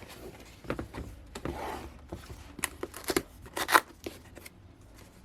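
Cardboard keyboard box being opened by hand: irregular clicks, scrapes and rustles of the flaps and packaging. There is a louder scrape about three and a half seconds in.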